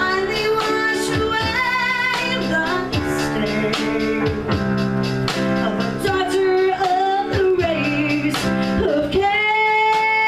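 A woman singing a musical-theatre ballad with piano and drum accompaniment, ending on a long held note with vibrato from about nine seconds in.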